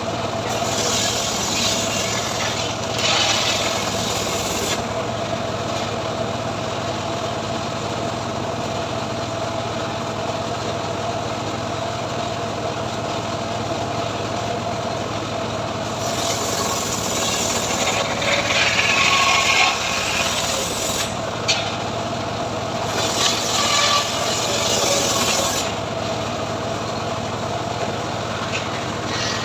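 Homemade engine-driven sawmill running with a steady hum while its blade cuts a mahogany log, the sawing growing harsher and brighter a few seconds in and again through much of the second half.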